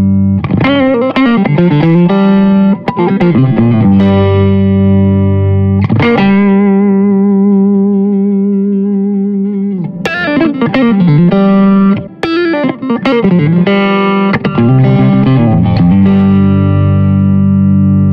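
Electric guitar, a Fender Stratocaster played through a Royal Plush optical compressor pedal into a clean amp. It plays phrases of picked notes and strummed chords, and the compressed chords ring out long with lasting sustain.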